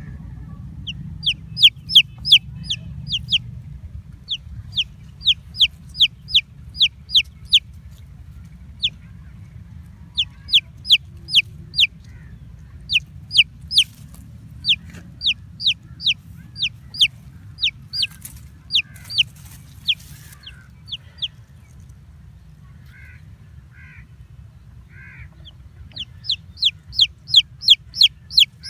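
Baby chicks peeping: runs of short, high, downward-sliding cheeps, several a second, broken by brief pauses. In the second half there is a lull with only a few softer, lower chirps, then the fast peeping starts again near the end. A low steady hum runs underneath.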